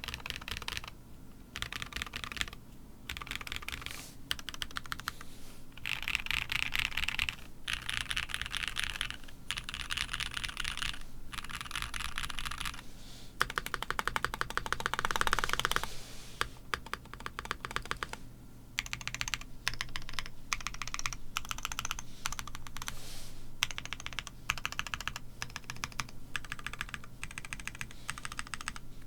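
Typing on a mechanical keyboard with GOK 7v switches with Kailh stems, mounted on an aluminium plate with plate foam: runs of rapid keystroke clacks with short pauses between them. The fastest and loudest stretch comes about halfway through.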